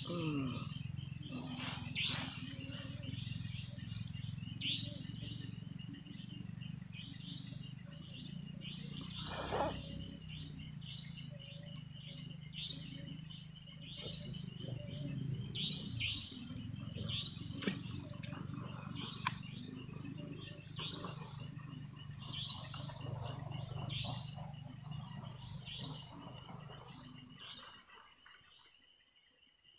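Dusk outdoor ambience: birds chirping in short, repeated calls over steady insect trilling and a low steady hum. Everything fades out near the end.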